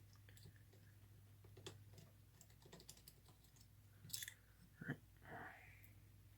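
Faint clicks and light taps of small tools and parts being handled while wires are worked loose from a toy train's electric motor, with a few sharper clicks about four and five seconds in, over a steady low hum.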